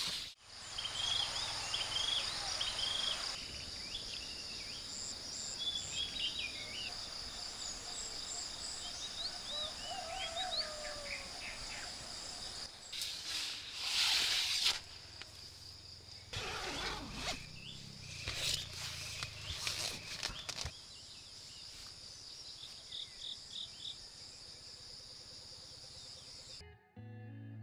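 Outdoor ambience of insects trilling steadily, with scattered bird chirps and calls, cut abruptly several times between shots. Music starts about a second before the end.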